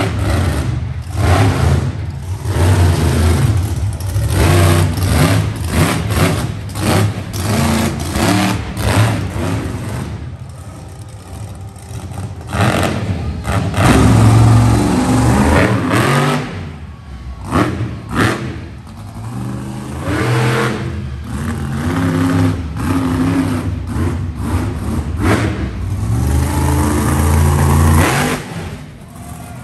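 Monster truck engines revving hard in repeated bursts, the pitch rising and falling with each throttle blip, with two quieter spells in the middle where the engine drops back.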